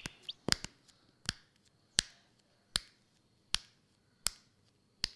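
Footsteps on a hard floor: a quick cluster of sharp taps at the start, then single even steps about every three-quarters of a second.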